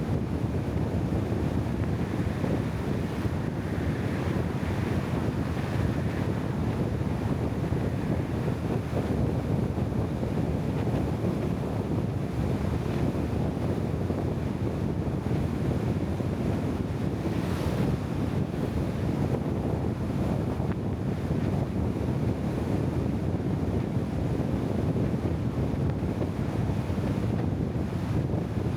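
Steady wind buffeting the microphone over a low, continuous rushing of water.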